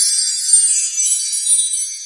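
Small metal chimes or bells tinkling: many high ringing tones struck together, then slowly fading.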